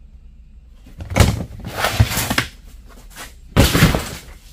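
A large plastic storage tote being handled: its lid closed and the tote shoved across a concrete floor, in two clattering, scraping bouts, about a second in and again about three and a half seconds in.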